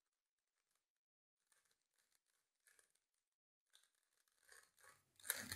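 Faint clicking and rattling of a 3x3x3 Rubik's Cube's plastic layers being turned by hand: a few scattered turns at first, then quicker, louder turning near the end.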